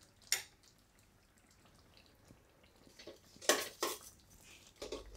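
A steel spoon clinking against a cooking pan a few times while stuffed tomatoes are set into gravy: one short clink shortly after the start and a close pair about three and a half seconds in.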